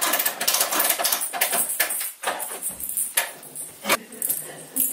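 Christmas tree stand being cranked tight around the trunk: a rapid run of ratcheting clicks for about two seconds, then a few single clicks.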